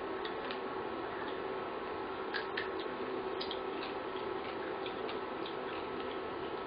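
Faint, irregular small clicks and ticks from fried crab shell being picked apart by hand over a steel plate, over a steady room hum.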